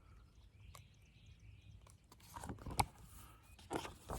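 Paper rustling as a page of a picture book is turned, in two short noisy swishes with a sharp click about two and a half seconds in and another swish near the end.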